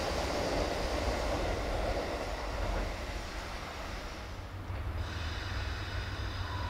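JR 313 series electric train running past on the rails, its noise slowly fading. About five seconds in, the sound switches abruptly to a quieter steady low hum with a faint high ringing.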